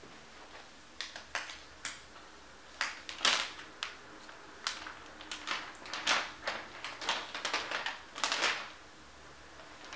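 Packaging being handled and pulled off a new computer: irregular sharp clicks and short rustles that start about a second in and die away near the end.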